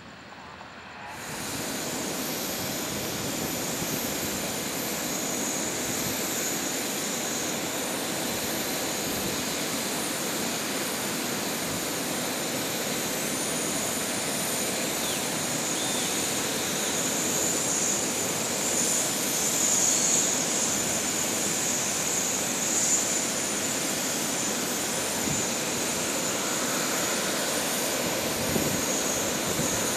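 Jet whine and rumble from an Airbus A350-941's Rolls-Royce Trent XWB turbofans as it taxis, starting abruptly about a second in. It is a steady hiss with several high-pitched whine tones over it and grows a little louder in the second half.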